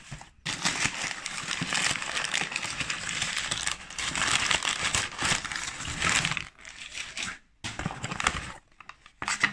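Crumpled brown kraft packing paper crinkling and rustling as it is pulled out of a cardboard box: a dense stretch of several seconds, then a few shorter rustles as the hands reach into the box.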